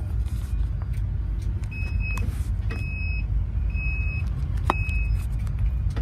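Steady low rumble of a ship's wheelhouse under way, with four short, high electronic beeps about once a second from about two seconds in.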